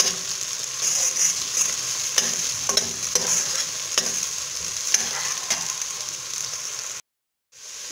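Chopped onions with red and green peppers sizzling in oil in a stainless steel pot, sautéing, while a metal spoon stirs them, scraping and clicking against the pot. The sound drops out for about half a second near the end.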